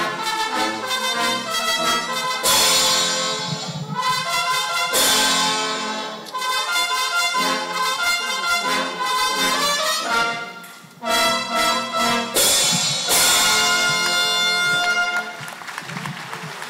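Brass-led music playing, with several loud accented entries and a softer passage near the end.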